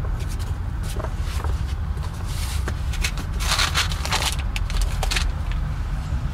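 Paper rustling and light knocks as a softcover owner's manual is handled and set down on a vinyl car seat, loudest about halfway through, over a steady low rumble.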